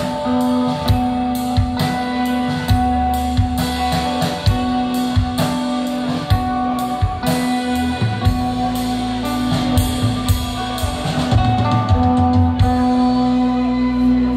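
Instrumental rock band playing live: electric guitars over a held low note, with a drum kit beating steadily, growing a little louder in the last few seconds.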